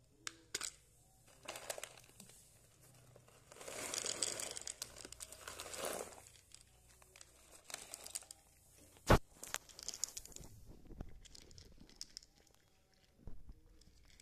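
A cat eating dry kibble from a plastic lid, crunching in irregular spells. One sharp click about nine seconds in is the loudest sound.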